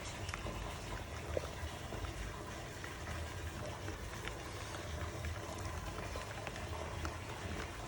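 Steady running or trickling water over a low hum, with a few faint short ticks.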